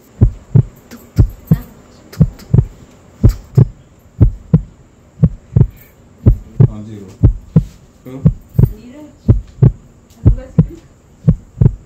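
Heartbeat sound effect: a steady lub-dub of paired low thumps, about one pair a second, used as a suspense cue. Faint muffled voices sound in the background in the middle and near the end.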